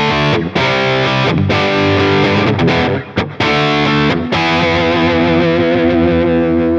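Overdriven electric guitar from a Seymour Duncan P-Rails bridge pickup in humbucker mode, through a Friedman Dirty Shirley Mini amp with delay and reverb. It plays a riff of short chopped chords with brief gaps, then holds a chord and lets it ring from about four seconds in.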